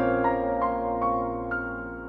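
Background music: a piano playing a slow melody of single notes over held chords, gently fading.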